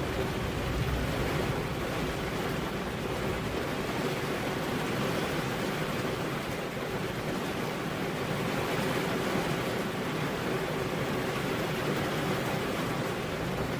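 Steady rain falling, an even unbroken hiss with no separate drops or pauses.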